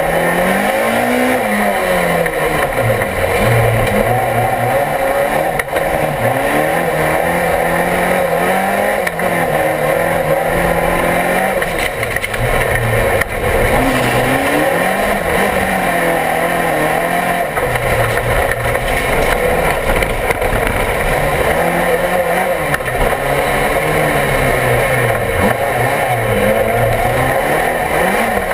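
Rallycross car's engine heard from inside the cockpit at racing speed, its revs repeatedly climbing and dropping.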